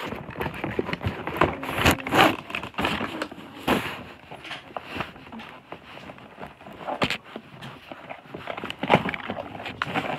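Toy packaging being handled and worked open: irregular crackling and rustling with sharp clicks.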